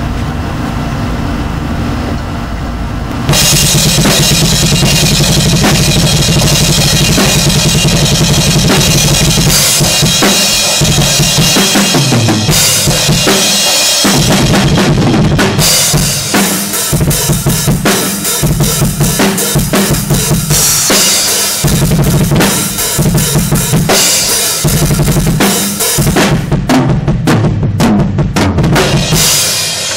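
Pearl drum kit played loud and fast, bass drum, snare and cymbals together, picked up by a bare microphone with no ear muffs over it. The playing starts about three seconds in and stops just before the end.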